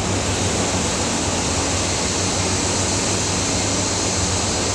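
Steady whoosh of fans over a low, even hum: hatchery incubator machinery running.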